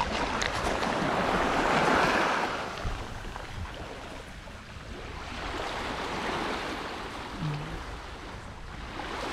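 Sea waves washing up the beach: one surge loudest about two seconds in, then a softer one around six seconds.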